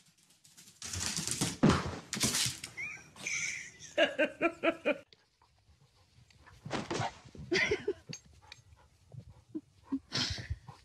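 A dog's voice: short, quick calls in a rapid run about four seconds in, among scattered scuffling noises.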